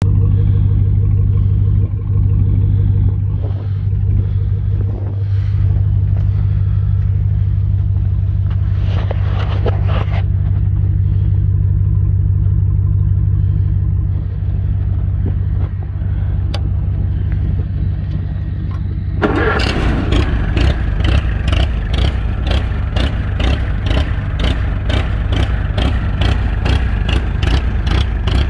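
Allis-Chalmers B tractor's four-cylinder engine cold-started at −12 on jumper cables: a steady engine drone for most of the time, then about nineteen seconds in the tractor fires and catches, running at an even idle of about three exhaust beats a second through its vertical stack.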